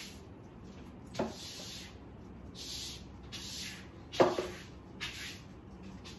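A paintbrush working acrylic paint on a paper palette: a few short scratchy rubbing strokes about a second apart, with two sharp knocks, one about a second in and a louder one just after four seconds.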